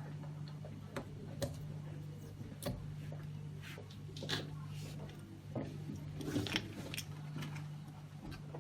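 Scattered light clicks and taps from handling small plastic parts and tubing, over a steady low electrical hum.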